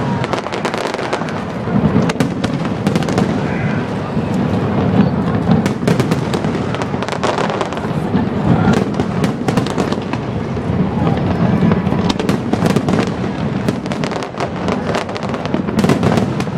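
Aerial fireworks bursting in quick succession: many sharp bangs and crackles over a continuous low rumble.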